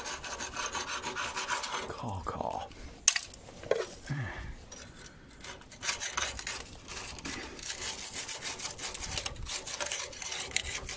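A tool scraping rapidly against the rusty steel chassis rail of a Land Rover Discovery 2, working off loose surface rust and flaking paint. There is one sharp knock about three seconds in, and the fast rasping strokes keep up steadily through the second half.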